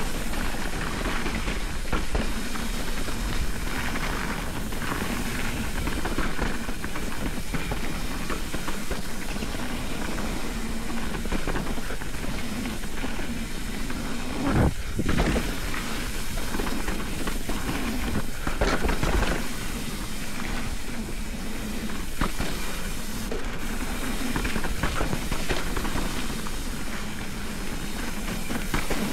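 Mountain bike riding fast down a dirt and gravel singletrack: steady rush of knobby tyres rolling over the dirt, mixed with wind on the mic and short rattles and knocks from the bike over bumps, with a louder knock about fifteen seconds in.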